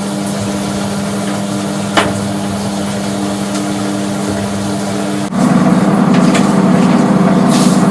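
A machine running with a steady hum, with one sharp click about two seconds in; about five seconds in it steps up to a louder, fuller hum.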